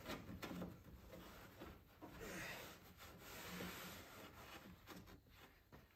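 Faint rubbing and brushing of carpet being smoothed and pressed down by hand inside a drawer, swelling softly a few times.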